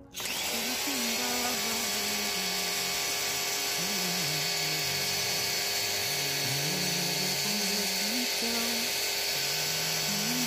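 Craftsman 1900-PSI electric pressure washer running, a steady motor-and-pump whine under the loud hiss of a fan-nozzle spray hitting a car door; it cuts in abruptly at the start. Background music with a slow bass melody plays underneath.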